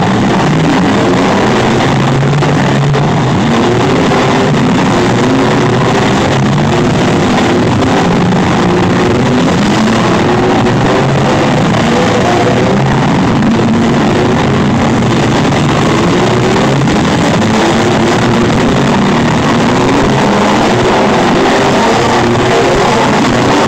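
Demolition derby minivans, trucks and SUVs with their engines revving hard while they ram each other, mixed with rock music playing over the loudspeakers. The whole sound is loud and steady, with engine pitches rising and falling throughout.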